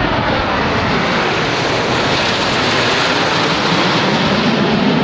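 Steady jet roar from the Snowbirds' nine CT-114 Tutor jets, each with a single turbojet, flying overhead in formation. The noise swells slightly toward the end.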